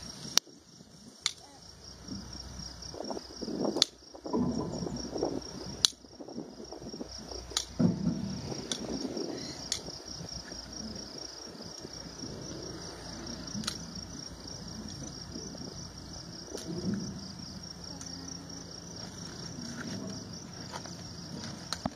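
Farrier's trimming tools working a horse's hoof: several sharp snaps at irregular intervals, with scraping in between. A steady high insect chirping runs underneath.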